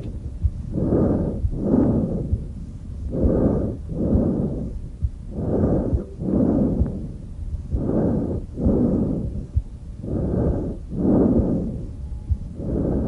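Tracheal breath sounds, the normal breath sound heard over the trachea. It is a harsh rush of air in, then an equally long rush out, with a short gap between, repeating about every two and a half seconds over a low rumble.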